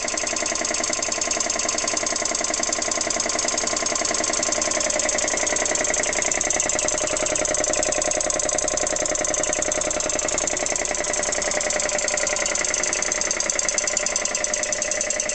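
Vintage Dunlop piston air compressor running steadily, its pump and electric motor making a fast, even pulsing as it builds pressure toward its cut-out.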